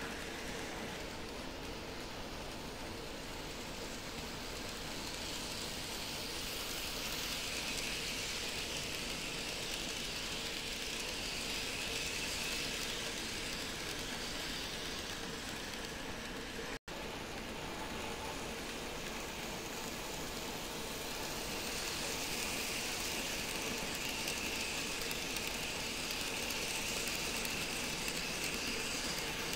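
N-scale model container freight train running on its track loop, a steady rolling hum of small wheels and motor. It grows louder twice as the train comes round close by, and the sound cuts out for an instant about halfway through.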